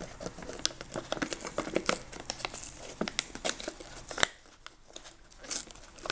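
Plastic film and the lid of a Pop Mie instant noodle cup crinkling and tearing as they are pulled open by hand: a string of sharp crackles, with one loud snap about four seconds in and a few more crackles near the end.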